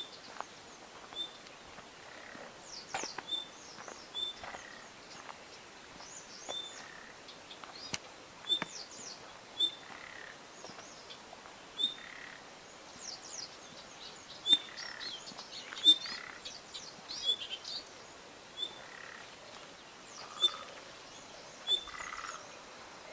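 Frogs calling and small birds chirping: a short high note repeats about once a second among quick falling chirps and softer, lower calls, with a few sharp clicks.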